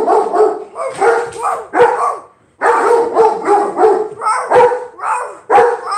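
A dog barking loudly in fast runs of barks, with a short break a little over two seconds in.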